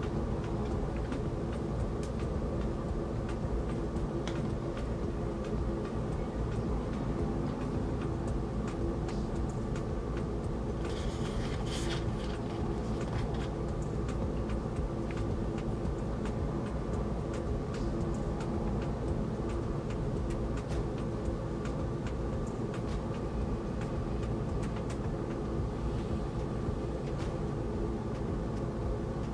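A steady droning hum with faint scattered ticks. A short paper rustle about eleven seconds in, as a page of a large glossy photo booklet is turned.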